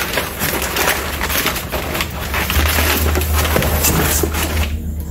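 Crumpled kraft packing paper rustling and crackling as hands dig through it in a cardboard box, stopping just before the end.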